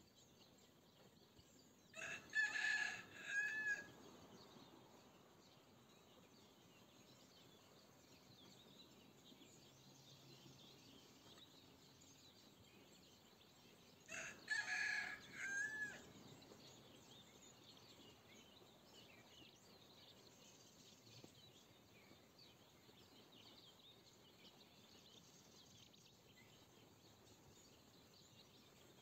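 A rooster crowing twice, about twelve seconds apart, each crow about two seconds long and ending in a drawn-out falling note. Faint bird chirping runs underneath.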